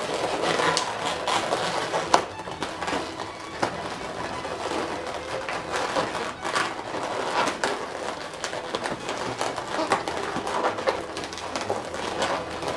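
Inflated latex modelling balloons being twisted, knotted and handled, the rubber rubbing and squeaking in a run of short irregular squeaks and creaks.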